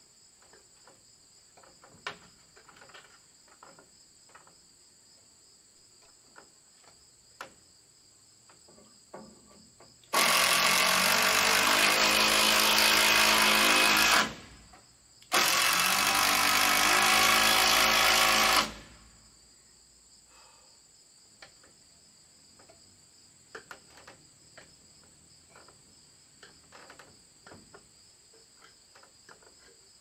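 Handheld power drill run twice against the timber framing, about four seconds and then about three seconds with a short stop between, driving a fastener into the shed framing. Crickets chirp steadily behind it, with light knocks from climbing the ladder.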